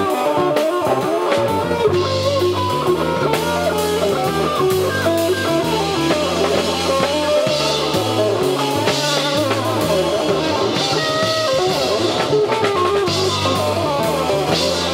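Small live band playing: electric guitar lines over a moving bass guitar line and a drum kit.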